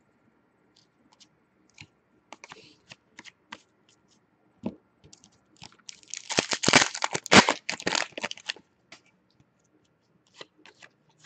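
Light ticks and taps of trading cards being handled, then, about six seconds in, the silvery foil wrapper of a 2015-16 Upper Deck Series 1 hockey card pack torn open and crinkled for a couple of seconds, the loudest sound here. A few soft card taps follow.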